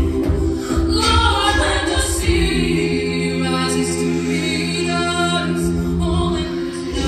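Mixed-voice a cappella group singing in close harmony into microphones, amplified through a stage PA: sustained chords over a low bass part.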